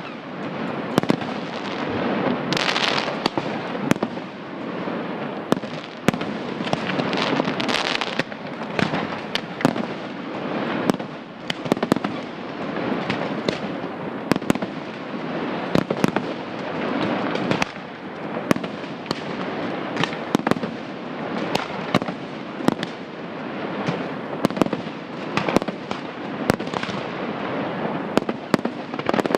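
Aerial fireworks display: a fast, irregular string of shell bursts and bangs, several a second at times, over continuous crackling.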